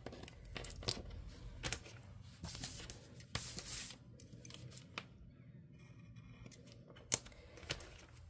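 Faint scratching and ticking of a precision craft knife trimming stickers on planner paper, with a couple of longer papery scrapes as the sheets are slid and turned.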